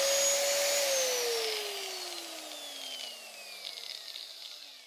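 Electric angle grinder with a cutting disc spinning free at full speed with a steady whine, then switched off about a second in, its pitch falling and fading as the disc spins down.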